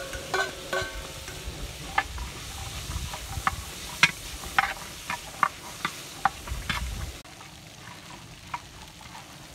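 A metal slotted spoon stirring shallots, garlic, dried red chillies and whole spices roasting in a large aluminium kadai, with irregular clinks and scrapes of metal on the pan. The clinks thin out about seven seconds in.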